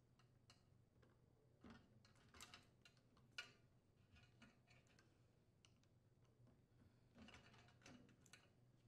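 Near silence broken by a few faint, short clicks and taps: wire connectors being worked off the terminals of a washing machine's water inlet valve with a small flathead screwdriver.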